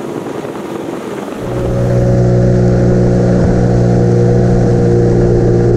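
Bass boat's outboard motor running at speed over the water, with rushing water and wind. About a second and a half in, a loud, steady engine drone comes in and holds at an even pitch.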